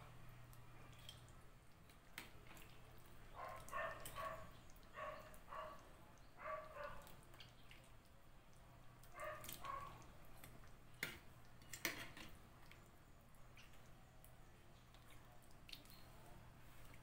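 Metal ladle scooping chicken curry from a metal wok into a ceramic bowl: a few soft clinks and scrapes with sauce dripping, over a low steady hum. Faint, short high-pitched sounds come in runs about three seconds in and again about nine seconds in.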